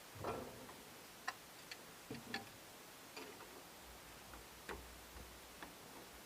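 Scattered light clicks and taps at irregular intervals, with a soft thump or two, over faint background hiss.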